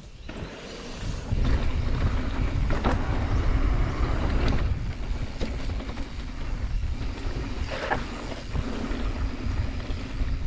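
Wind buffeting the microphone and road rumble while riding a bicycle, with a few short knocks or rattles.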